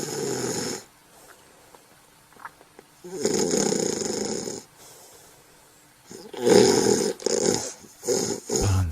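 Snoring on successive breaths: one snore trails off just after the start, another comes about three seconds in, and a longer one from about six seconds in breaks up into several short pulses.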